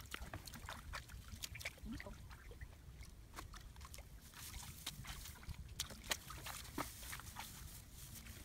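Irregular soft clicks and rustles of footsteps through grass and mud, over a low rumble of wind or handling on the microphone.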